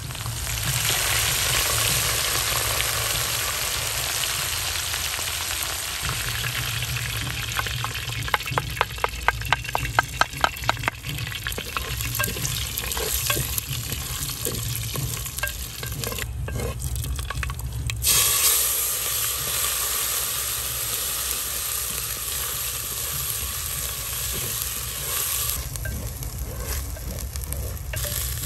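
Hot oil sizzling in a clay pot as curry leaves and then a mustard-spice paste fry, stirred with a wooden spatula. A quick run of about a dozen knocks comes in the first half, and the sizzle flares loudly just past the middle.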